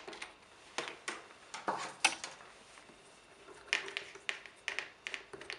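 Plastic tube connection nuts being unscrewed by hand from the top and bottom of a Seko Tekna Evo dosing pump head: scattered small clicks and scrapes of plastic on plastic, the sharpest click about two seconds in.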